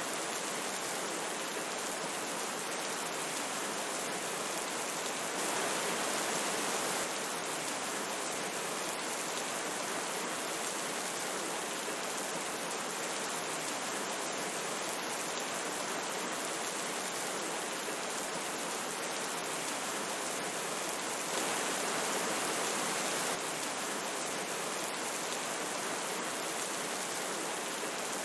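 Steady rushing of a river with rain falling, an even wash of water noise with fine pattering of drops; it swells slightly louder twice, for a second or two each time, and drops back abruptly.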